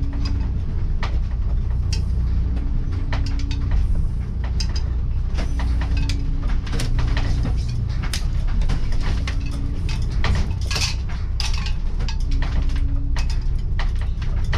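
Diesel engine of a converted school bus running as it drives over a bumpy dirt road, a steady low rumble. Frequent sharp rattles and clatters come from the bus's fittings and loose contents over the bumps, bunching up in the second half.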